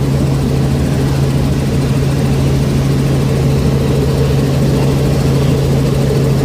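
Robinson R44 Raven II helicopter in flight, heard from inside the cabin: a loud, steady drone of engine and rotor with a strong low hum.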